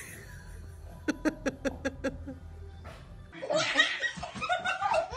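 A quick run of short laughs, then high, excited baby laughter and squeals that grow louder toward the end.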